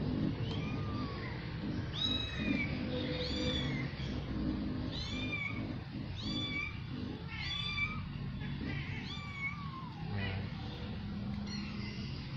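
Kittens mewing over and over in high, thin calls, often two close together, that stop about ten seconds in.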